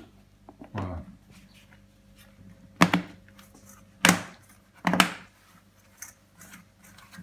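Snap-on lid of a plastic fermenting bucket being pressed down around its rim to seal the fermenter: four sharp snaps and knocks, spread unevenly over several seconds.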